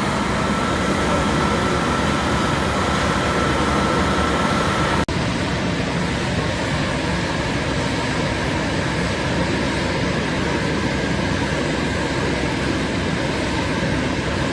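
Steady, loud noise of foundry machinery, with a faint steady whine in the first few seconds. It cuts out for an instant about five seconds in, then carries on slightly duller.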